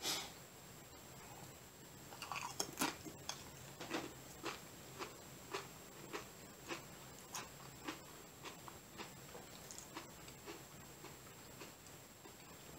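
A bite into a salsa-dipped Julio's seasoned corn tortilla chip, then quiet crunchy chewing, about two crunches a second, thinning out toward the end.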